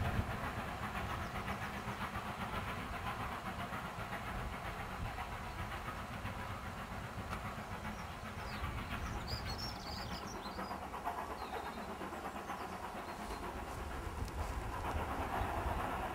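Distant steam train running away across open country: a steady faint rumble and hiss from the locomotive and coaches, with a few bird chirps about halfway through. A louder steady hiss comes in near the end.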